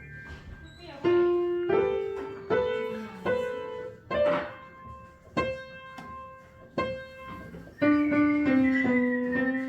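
Piano music: a slow melody of struck notes and chords, each fading away after it is played.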